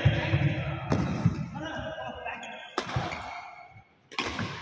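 Badminton rackets striking a shuttlecock in a doubles rally: three sharp hits, about a second and a half apart.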